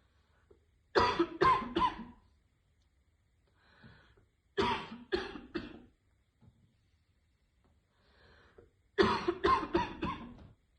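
A woman's harsh, barking smoker's cough, in three fits of three to five quick coughs each, a few seconds apart.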